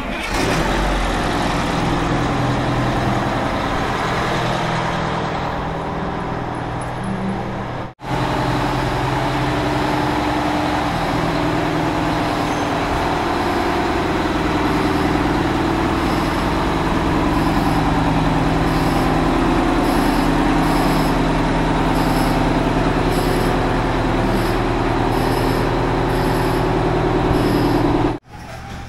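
Detroit Diesel 8V-92 two-stroke V8 of an M1070 HET 8x8 military truck running steadily as the truck creeps forward under power. The sound cuts off for an instant about eight seconds in and again near the end.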